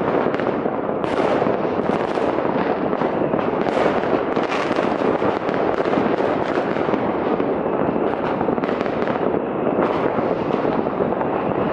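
Many fireworks and firecrackers going off across a city at once, merging into a continuous dense crackle of overlapping bangs with no pauses.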